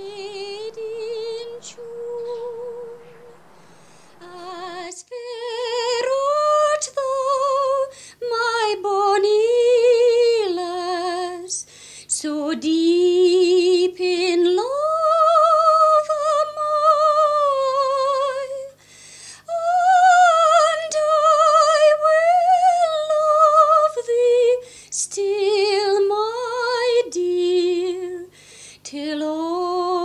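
Music: a woman singing a slow melody in long held notes with vibrato.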